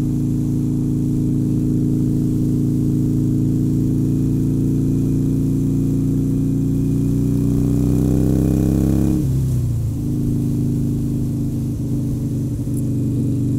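Harley-Davidson Sportster Forty-Eight's V-twin engine running at speed, its pitch climbing steadily as the bike accelerates. About nine seconds in the pitch drops suddenly as the rider shifts up a gear, then holds a steady lower note.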